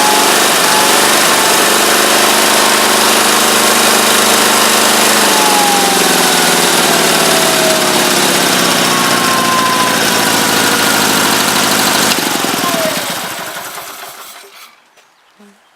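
Old garden tractor's engine running steadily, then shut off: it winds down over a second or two and stops about fourteen seconds in.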